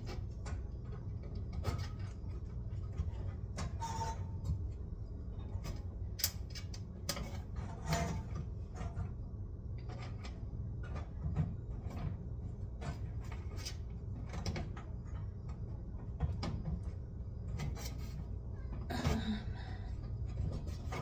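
Scattered small clicks, knocks and rustles of hands pushing wire connectors onto the terminals of a new oven bake element, over a steady low hum.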